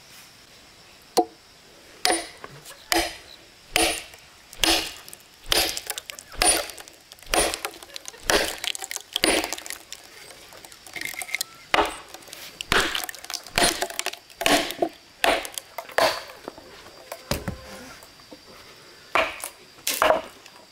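Repeated sharp chopping blows into old, weathered logs, about one a second, each a crisp knock with a slight clink, with a short pause near the end.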